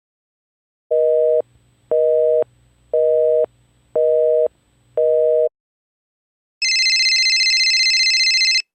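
Telephone busy signal: five evenly spaced beeps of a low two-note tone, about half a second on and half a second off. After a short gap comes a two-second burst of a high, fast-trilling electronic telephone ring.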